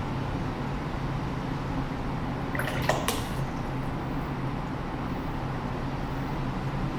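Steady low hum and hiss of room tone, with a brief light tap or clink about three seconds in.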